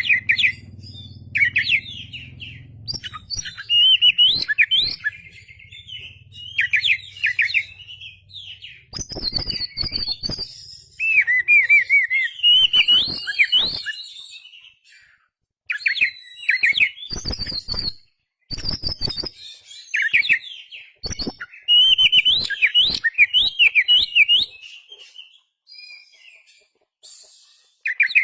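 Oriental magpie-robin (kacer) singing: a loud, varied song of quick whistles, trills and chirps in bursts of a second or two, broken by short pauses and mixed with sharp clicking notes.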